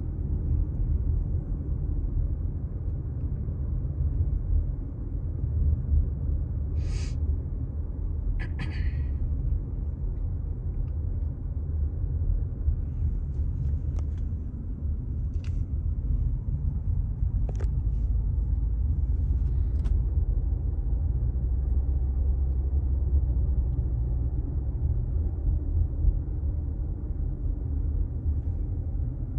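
Road noise heard inside a moving car's cabin: a steady low rumble of tyres and engine at low speed, with a few brief clicks in the middle.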